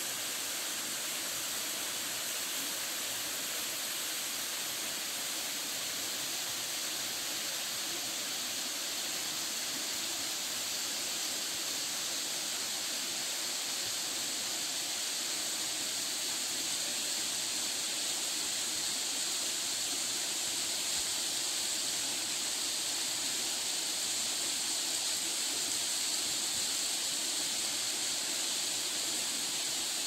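Steady rushing of a small mountain waterfall spilling over rocks.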